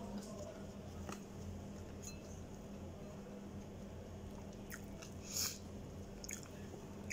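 Eating by hand: chewing, with a few small clicks and a brief rustle from fingers picking food off a plate, over a steady low hum.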